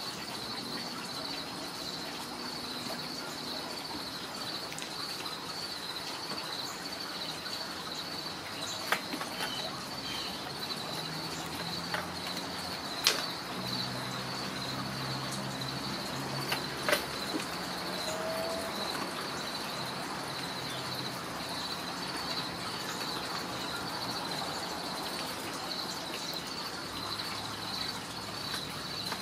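Insects chirping in a steady, high, pulsing trill, with a few sharp clicks partway through.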